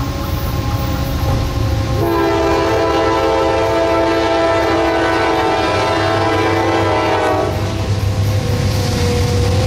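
Freight diesel locomotive sounding its multi-chime air horn as it approaches. A long, loud chord from about two seconds in to past seven seconds thins to a single lower tone near the end, over the low rumble of the locomotive and train.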